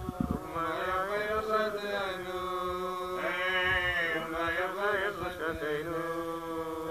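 A man chanting a Hebrew liturgical melody: long held notes that glide and waver in pitch, with no break throughout.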